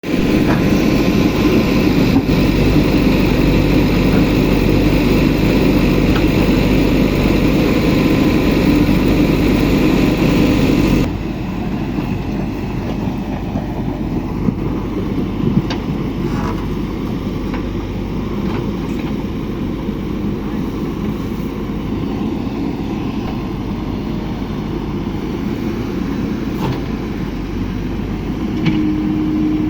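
JCB backhoe loader's diesel engine running steadily under work, with a few faint knocks. About eleven seconds in, the sound drops suddenly to a quieter, duller run.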